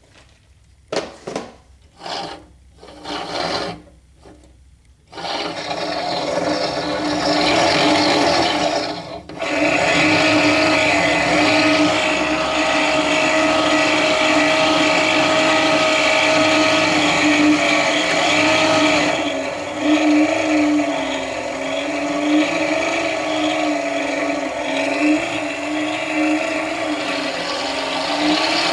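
Electric drive motors of a scratch-built RC bulldozer turning its roller chains and gear sprockets: a few short blips, then running steadily from about five seconds in with a steady hum, dropping out briefly near nine seconds.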